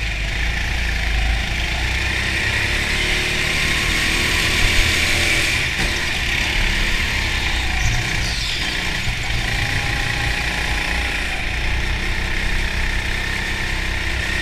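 Go-kart engine running at speed through the laps, its note rising and falling with the throttle through the corners.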